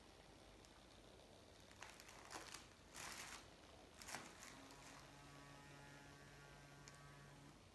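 Faint, steady electric hum that starts about halfway through and cuts off shortly before the end, after a few faint rustles earlier on.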